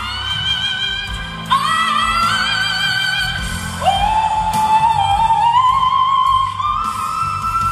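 A female coloratura soprano sings long, high notes with vibrato over a band backing. At about a second and a half and again near four seconds she scoops up into a new note. In the second half the line climbs step by step.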